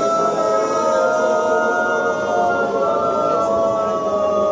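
A church congregation of men and women singing a hymn together without instruments, holding long sustained notes.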